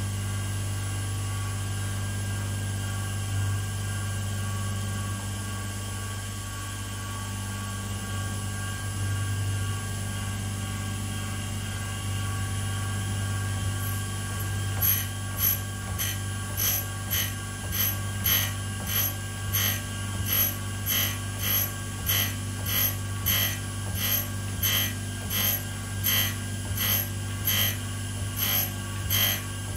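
Tool and cutter grinder's motor running with a steady hum while grinding the end cutting faces of an endmill. About halfway through, short grinding contacts of the wheel on the cutter start repeating about one and a half times a second.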